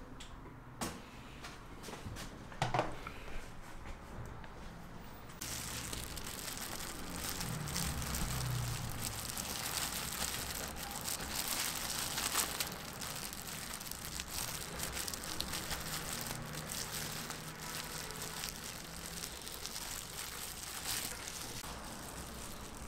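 Crinkling and rustling handling noise with many small clicks and light knocks, typical of crepe preparation and wrapping; the sound changes abruptly about five seconds in.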